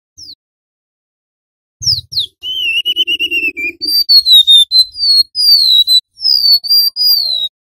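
Golden-bellied gerygone (remetuk laut) singing: high, thin whistled notes, most sliding down in pitch, with a wavering held note about two seconds in followed by a quick run of falling whistles.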